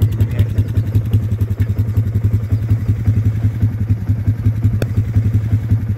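An engine idling steadily with a fast, even low pulse. There is a brief click about five seconds in.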